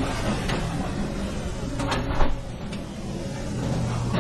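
Commercial kitchen noise: a steady hum and rush with a few sharp knocks and clatters, the loudest about two seconds in.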